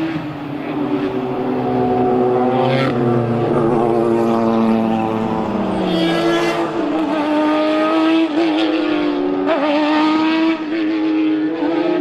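Several racing car engines running together at fairly steady revs, their notes overlapping. About halfway through a single engine's even note takes over, wavering slightly as the throttle is lifted and reapplied.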